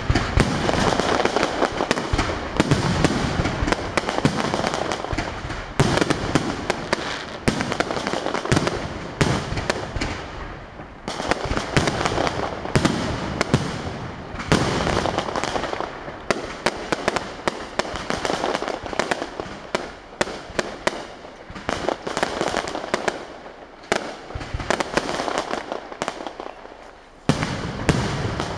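Aerial fireworks shells bursting in a dense, continuous barrage: many sharp bangs in quick succession, with no pause between them.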